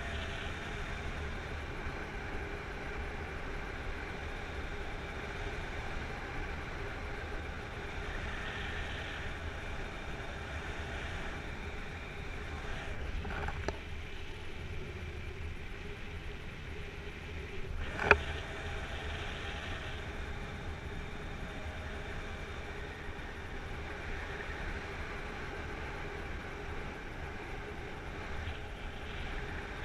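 Steady wind rushing over a camera on a paraglider in flight, with a low rumble and faint steady whistling tones. A single sharp click about eighteen seconds in.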